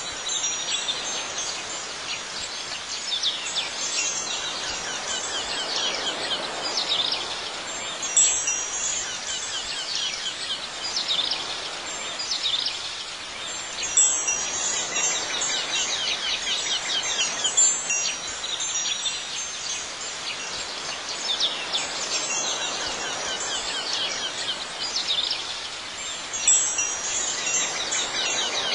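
Wind chimes tinkling steadily, swelling into a fresh cluster of ringing strikes every few seconds.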